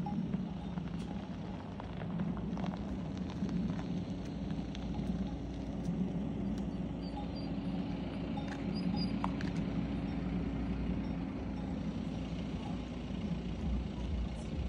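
Cows' hooves clopping on a paved farm lane as the herd walks past, with scattered single steps over a steady low mechanical hum. A motorbike's engine grows louder near the end.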